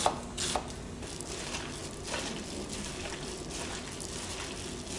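A few sharp knife chops on a wooden cutting board in the first half second, then soft, steady squishing and crinkling as a plastic-gloved hand mixes ground meat and sliced onion in a glass bowl.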